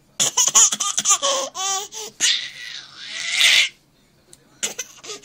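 A person laughing in quick bursts, then a long breathy rush of air that grows louder and cuts off suddenly.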